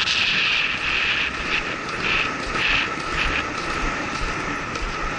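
Helmet-cam sound of a horse galloping on grass: wind rush over the microphone with the rhythm of the gallop, a pulse about twice a second that fades after about three seconds.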